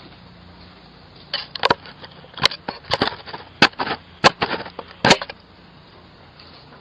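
Someone striking a Ring doorbell camera: a rapid, irregular series of about a dozen sharp knocks over roughly four seconds, starting about a second in.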